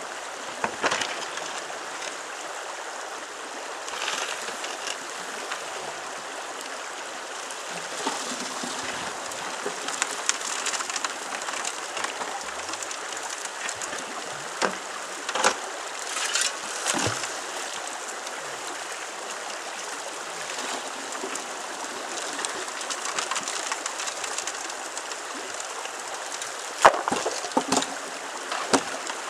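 Shallow river running steadily over a gravel riffle, with scattered sharp knocks and splashes of rock and water as a hand suction tube is worked in the streambed. The loudest splashes and knocks come near the end, as the tube is swung over and emptied into the sluice box.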